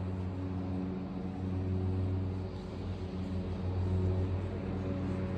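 Lawn mower engine running steadily, a low droning hum that swells louder and eases off a couple of times.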